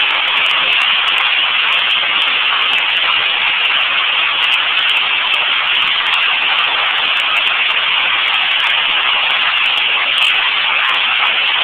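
Hailstorm: hail and heavy rain pelting down onto pavement and buildings in a loud, steady, dense rush of noise.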